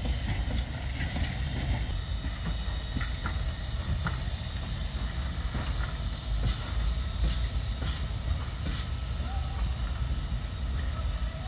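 Ol49-class 2-6-2 steam locomotive moving slowly along the station tracks with its train, giving a steady steam hiss and a few faint clicks from the wheels. Wind rumbles on the microphone throughout.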